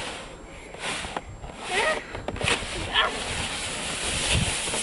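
Snowboard sliding over crusty snow, a steady scraping hiss, with short bits of voices about two and three seconds in.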